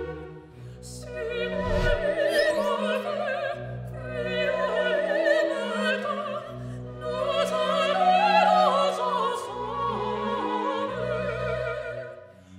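Background music: operatic singing with strong vibrato over an orchestra holding low sustained notes. It fades out near the end.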